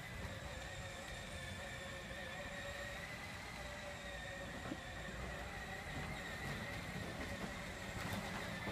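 Faint, steady, slightly wavering whine of a child's battery-powered ride-on toy tractor's electric motor as it drives, over a low rumble.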